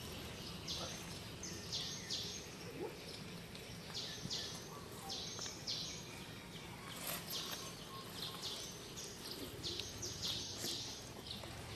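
Outdoor forest ambience: short, high-pitched chirps repeating about two or three times a second in irregular runs, over a steady low hum.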